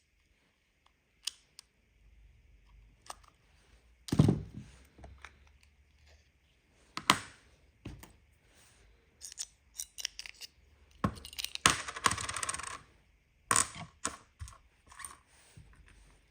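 Hands working a Volvo key fob: sharp plastic clicks and taps of the casing and tab, and small metallic clinks of CR2430 coin cell batteries being handled. The clicks come irregularly, the loudest about four and seven seconds in, with a longer rattling scrape from about eleven to thirteen seconds in.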